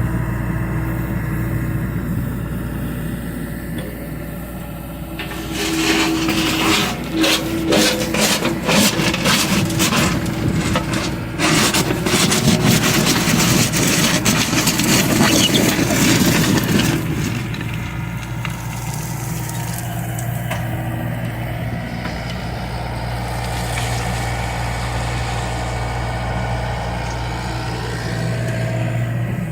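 John Deere excavator's diesel engine running steadily; about six seconds in it works harder for roughly ten seconds under a loud stretch of scraping, rattling and knocking as the bucket works the ground, then settles back to a steady run.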